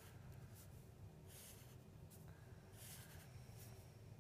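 Faint scratching of a Sharpie permanent marker drawn across paper in several short strokes as stripes are filled in, over a low steady hum.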